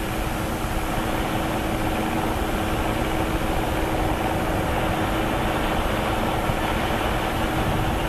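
Tractor engine running steadily while towing a wide end-tow field roller, with the rolling rumble of the rolls over cultivated ground; the sound stays even throughout.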